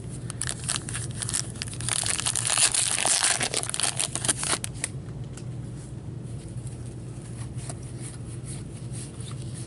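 A trading-card pack wrapper being torn open with a burst of crinkling and tearing, loudest from about two to five seconds in, followed by softer rustling as the cards are slid out and fanned.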